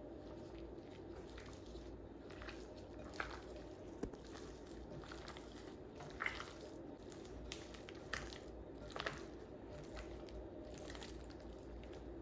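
Quiet kitchen food-prep handling: soft squishing and a few light clicks and knocks, scattered irregularly over a steady low hum.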